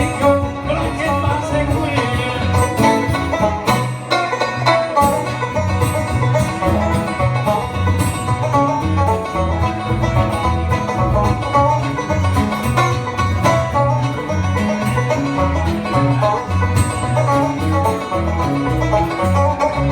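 Live bluegrass band playing an instrumental passage: quick picked string melody over a steady, rhythmic bass line.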